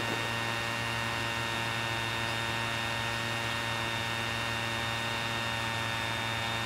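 A steady hum made of several held tones, unchanging in level and pitch.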